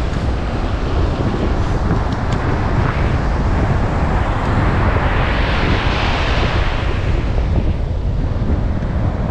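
Wind buffeting the microphone, a heavy steady rumble, over surf on the beach; a rushing wash swells and fades around the middle.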